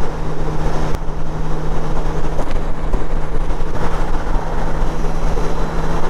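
Motorcycle engine running at a steady highway cruise with one constant hum, under a heavy rush of wind on the microphone.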